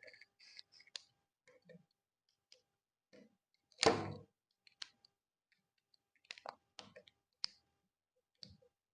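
Light, scattered clicks of plastic and diecast model-kit parts being handled and fitted together, with one louder clatter about four seconds in.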